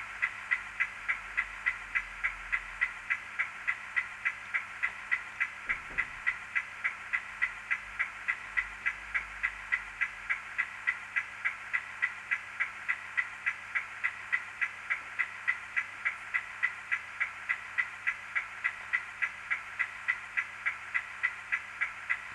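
Steady, even ticking, about three ticks a second.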